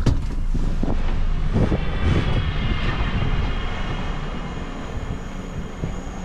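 Refuse truck's diesel engine running, with a sharp click at the start and a few heavy thumps a second or two in as the driver climbs down from the cab. A high whine comes in over the middle, and the engine sound gets quieter toward the end.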